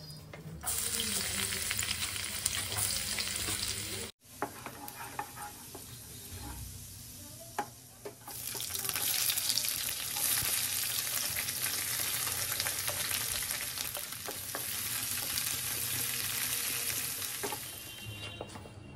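Sliced onions and green capsicum sizzling in hot oil in a non-stick kadai. The sizzle comes in two long stretches, split by a sudden cut about four seconds in and a quieter few seconds with a handful of sharp clicks.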